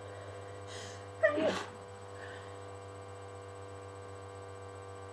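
One sneeze into a handkerchief from someone with a cold: a short breathy intake, then about a second in a single sharp voiced 'achoo' burst that dies away within half a second. A steady low electrical hum runs underneath.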